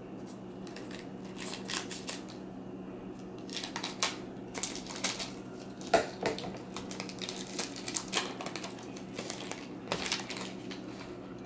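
Scissors snipping open a foil trading-card pack, then irregular crinkling of the wrapper, small clicks and the light handling of cards being slid out. There is a sharp clack about six seconds in as the scissors are put down on the table, over a faint steady low hum.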